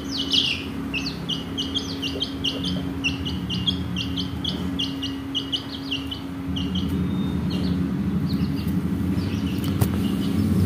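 Chicks peeping: a rapid run of short, high, falling peeps, several a second for the first half, then sparser.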